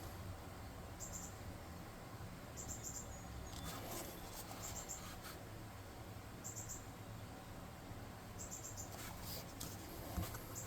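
Faint cricket chirping: short trills of a few quick high pulses every second or two, over a low steady room hum and a few soft handling clicks.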